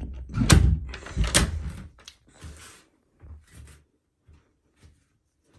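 Two loud knocks about a second apart, followed by a few lighter bumps that fade out.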